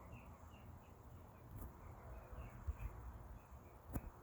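Faint outdoor ambience: small high chirps repeating a few times a second over a low rumble, with one sharp click near the end.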